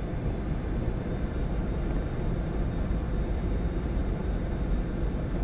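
Steady low rumble of flight-deck noise in a Boeing 747 on final approach: air rushing past the cockpit and the engines running at approach power, with no distinct tones or knocks.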